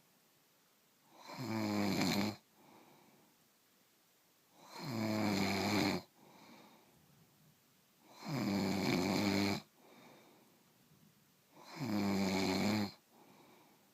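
A sleeper snoring in a steady rhythm: four long, loud, rasping snores about three and a half seconds apart, each followed by a much softer breath.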